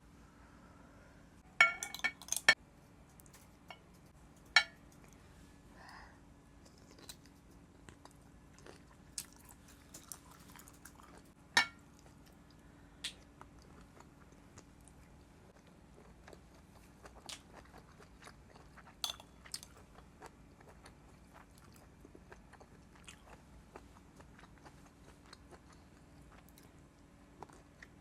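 Close-miked eating sounds of boiled octopus being chewed: scattered wet mouth clicks and soft chewing. A few sharp clinks ring out, the loudest a quick cluster about two seconds in and another near the middle.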